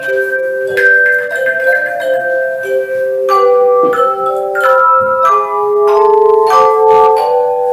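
Tone chime ensemble playing: struck metal chimes ringing in long sustained notes that overlap into chords, with new notes entering every half second or so.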